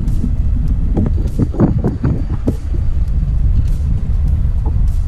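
Wind buffeting the microphone on a kayak at sea: a loud, steady low rumble, with scattered faint clicks.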